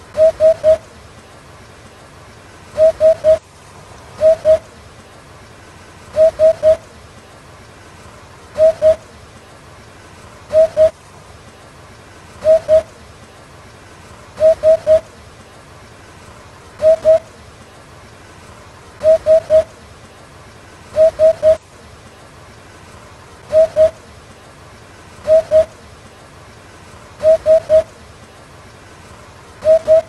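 Eurasian hoopoe singing its low hooting "oop-oop-oop" song: short soft hoots in groups of two or three, repeated about every two seconds.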